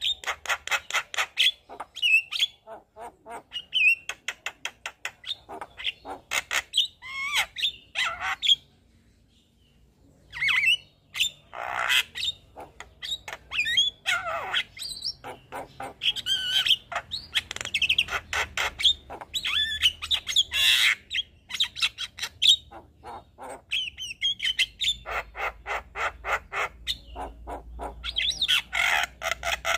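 Javan myna singing vigorously: rapid runs of clicks and harsh chatter mixed with squawks and short whistled notes. It breaks off for about two seconds roughly nine seconds in.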